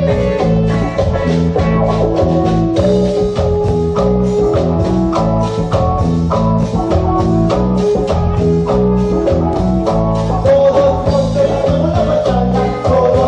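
Live dance band playing: a steady, quick drum beat under held bass notes and melody instruments.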